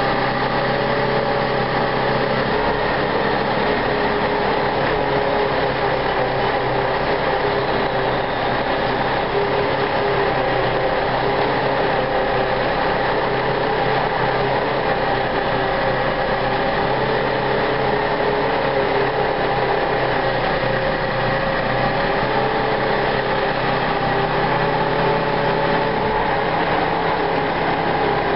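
Boom truck's engine running steadily to power the crane as it lifts a load, a continuous drone with several held tones on top.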